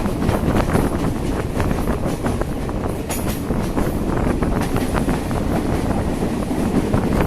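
Sri Lankan Railways Class S8 diesel multiple unit running along the line: a steady rumble with a continual rattle of small clicks, and wind buffeting the microphone.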